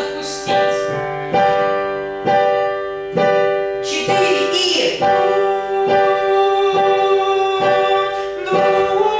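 Piano struck in repeated chords about once a second, with a voice holding a sung note over it, as in a vocal warm-up exercise.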